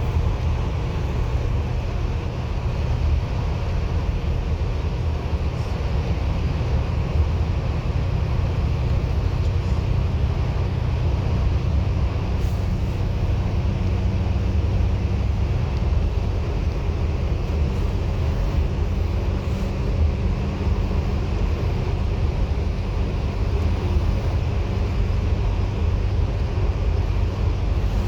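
Steady low drone of engine and road noise inside a moving bus, holding an even level throughout.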